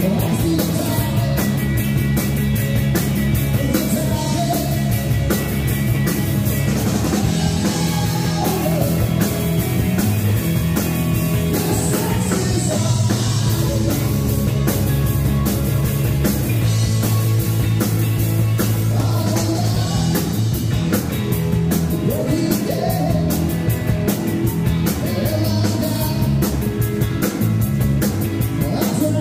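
Live rock band playing: electric guitar, bass guitar and drum kit, with lead vocals sung into the microphone.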